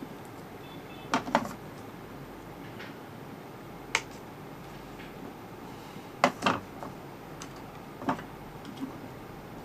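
Scattered sharp clicks and snaps of small plastic and tape handling: a circuit board, clear sticky tape and scissors being worked against an inkjet printhead's plastic housing. About six clicks, two of them in quick pairs, over a faint steady hiss.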